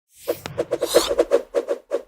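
Walkie-talkie transmission effect: a rapid, stuttering run of short crackling bursts of radio static and squelch, about seven a second.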